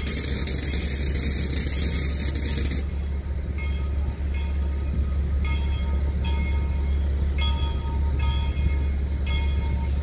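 Steam railyard sound: a hiss lasting about the first three seconds, over a steady low rumble. From about halfway in, a run of short repeated tones comes about twice a second.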